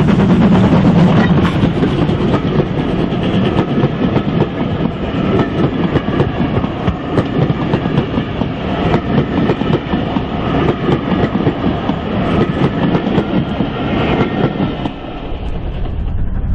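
Ivatt Class 2MT 2-6-0 steam locomotive 46443 passing close under steam, then its train of coaches rolling by with wheels clattering over the rail joints. About fifteen seconds in the sound drops away to a lower rumble.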